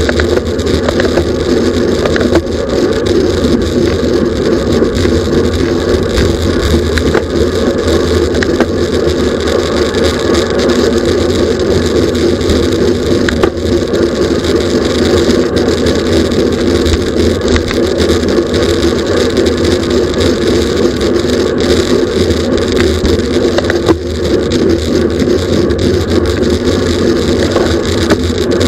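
Steady, loud rush of wind and road noise from a racing bicycle at speed, with no break.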